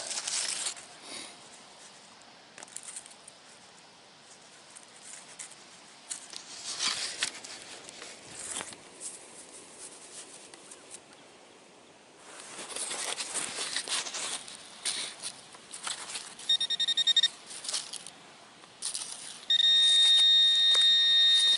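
Rustling, scraping and crackling of gloved hands, grass and soil as a metal detectorist digs out a target. Then a handheld pinpointer sounds a steady, high buzzing tone: briefly about three-quarters through, then loud and held for the last two seconds as it sits on the target.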